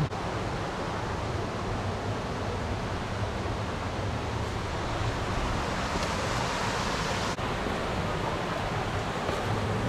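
Steady rush of water in a mountain stream gorge, an even hiss with no distinct events; it dips briefly about seven seconds in.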